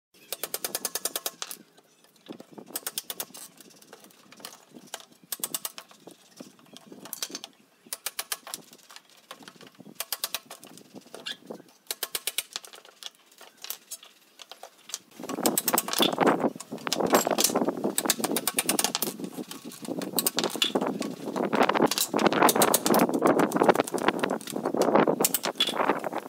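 A bare saw blade held in the hand, sawing back and forth through the nails between pallet boards and stringers: a rapid rasping that comes in short strokes. About halfway through it becomes louder and more continuous.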